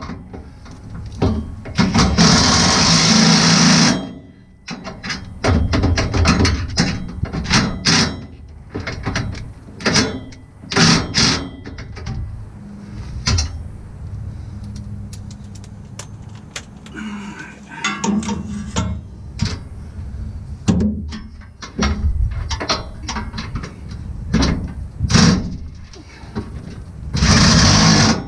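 A cordless power tool running hitch mounting bolts in, in bursts of a few seconds near the start and again near the end. In between come sharp metallic clicks and clinks of the tool, socket and bolts being handled.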